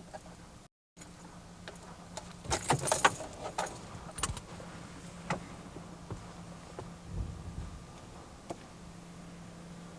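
Small metal objects jangling: a quick flurry of sharp clicks and rattles a couple of seconds in, then a few scattered single clicks over a faint steady low hum.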